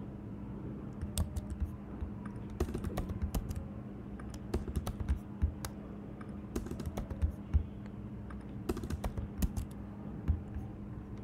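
Typing on a computer keyboard: irregular keystrokes, some in quick runs, over a low steady hum.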